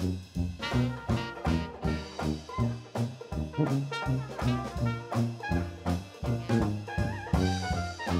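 Small traditional New Orleans jazz band playing live: a trumpet leads the melody over a pulsing sousaphone bass line, with banjo and drum kit keeping the beat.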